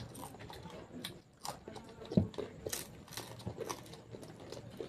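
People chewing and biting into fuchka and moglai, heard as scattered small clicks and mouth sounds, with a brief low sound about two seconds in.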